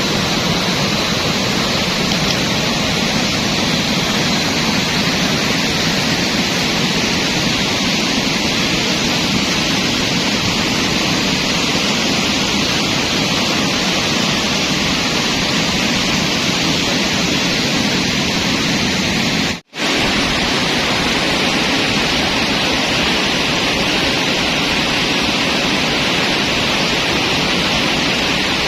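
Steady, loud rush of river rapids, an even wash of water noise with no break except one brief dropout about twenty seconds in.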